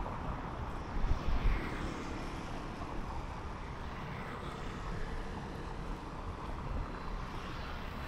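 Outdoor road traffic: a steady engine rumble, with wind buffeting the microphone in a couple of low thumps about a second in.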